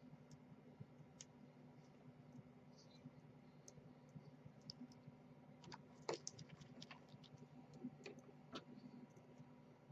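Faint scattered clicks and taps of a small screwdriver and screws as the LCD is screwed back into an iPad 2's aluminium frame, the sharpest click about six seconds in, over a low steady hum.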